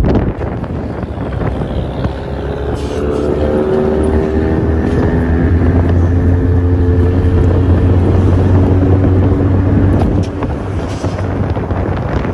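Car engine and exhaust running as a car rolls slowly past, a steady low exhaust drone that swells about four seconds in and drops off about ten seconds in.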